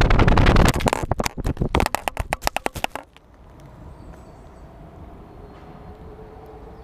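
DJI F550 hexacopter crashing down through tree branches, a rapid run of loud cracks and snaps, as it falls with its battery drained. The cracking stops abruptly about three seconds in, leaving only faint steady background noise.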